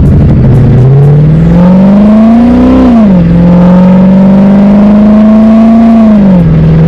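Old C4 Corvette's V8 engine accelerating hard under full throttle. Its pitch climbs, then drops as it shifts up, climbs again, and drops at a second upshift near the end.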